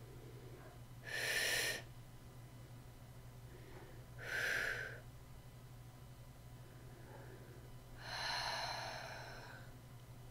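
A woman breathing audibly, three slow breaths a few seconds apart, the last one longer, over a faint steady low hum.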